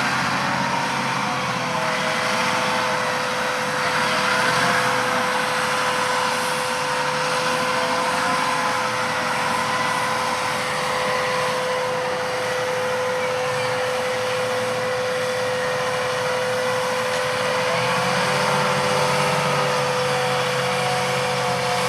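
John Deere 8345R tractor running steadily in the field while pulling a planter, a steady high whine held over the engine noise.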